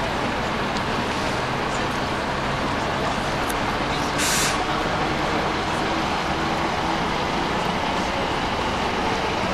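Steady running noise of idling motor vehicle engines, with one short, sharp hiss about four seconds in.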